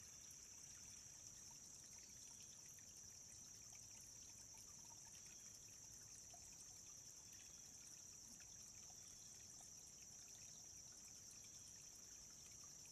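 A small woodland stream trickling steadily, faint, with a high hiss and many tiny splashes and drips.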